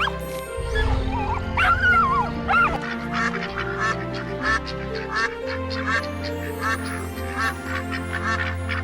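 Animal calls over background music: a few gliding calls at first, then short calls repeated about twice a second.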